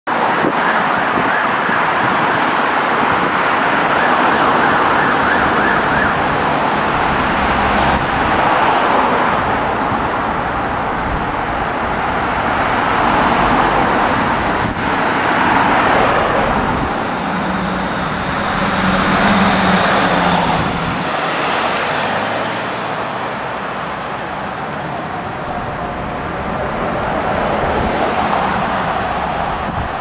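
Emergency vehicle siren wailing through city traffic, growing louder and fainter every few seconds, over the noise of passing road traffic.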